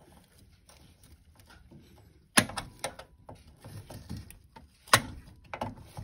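Gloved hand working parts at the diverter valve port inside a Vaillant ecoTEC boiler: faint scrapes, then scattered clicks and two sharp knocks, about two and a half and five seconds in.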